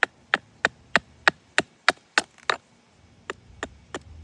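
Hatchet chopping into a cherry-wood spoon blank in quick, short strokes, about three a second, roughing out the dip of the spoon bowl. The strokes pause briefly past the middle, then resume.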